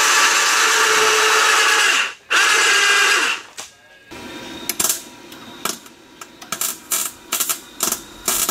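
Small electric winch motor running as it pulls in its cable, for about two seconds, a brief stop, then about another second before it cuts off. After that, a string of short, sharp clicks and knocks.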